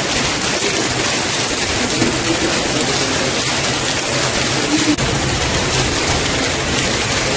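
Heavy rain pouring down, a loud steady hiss with no let-up.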